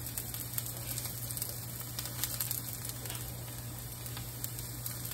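Diced onions sizzling in hot oil in a cast-iron skillet as they brown, a steady frying hiss with scattered small pops and crackles.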